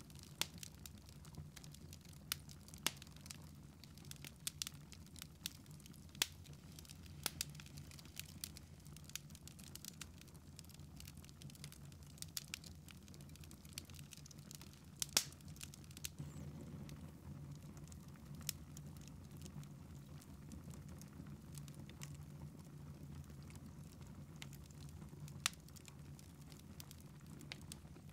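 Wood fire burning in a fireplace, crackling with irregular sharp pops, one louder pop about halfway through, over a low steady hum.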